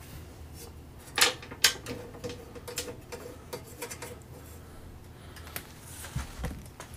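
Hands handling a metal traffic light housing: two sharp knocks about half a second apart with a faint ring after them, then scattered light clicks and a short rustle of paper.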